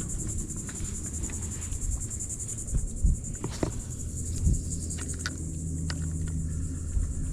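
High, steady buzzing insect chorus with a fast, even pulse, typical of insects in the mangroves, over a low rumble, with a few small clicks near the middle.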